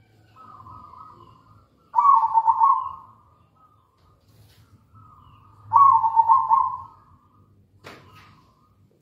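Zebra dove (perkutut) cooing: two loud, rolling coos about three and a half seconds apart, each led in by a softer note. A single sharp click comes near the end.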